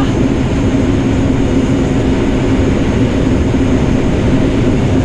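Combine harvester running steadily under load while harvesting corn, a loud even drone with a constant low hum.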